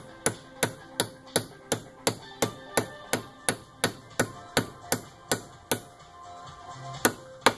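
A hammer striking a Keensert installation tool in steady sharp taps, about three a second, driving the insert's locking keys into an aluminum casting to lock the thread insert in place. The tapping pauses briefly near the end, then two more strikes follow.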